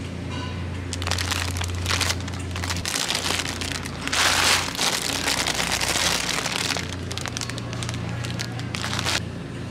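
Plastic wrapper of an instant-noodle family pack crinkling and rustling as it is handled, loudest about four seconds in.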